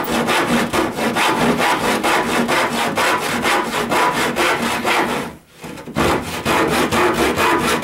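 Handsaw cutting through wood in rapid, even back-and-forth strokes, stopping briefly about five seconds in and then starting again.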